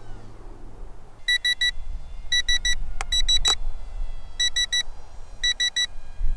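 RC transmitter's low-battery alarm: groups of three quick high beeps repeating about once a second, the warning that the plane's battery is going flat. Two sharp clicks about three seconds in, over a low wind rumble.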